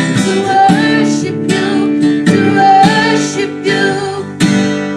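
Music from a gospel worship song in an instrumental gap between sung lines: rhythmic chord strokes over held notes.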